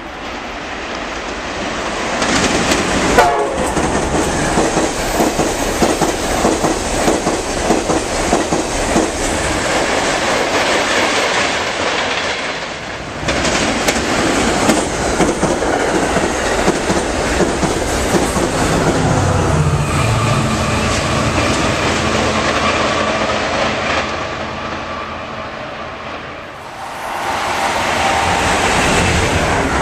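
Electric passenger trains passing at speed on the electrified main line: a loud, steady roar of wheels on rail with clattering over the joints. It eases off briefly twice, and a new surge near the end comes as an Amtrak Acela Express arrives.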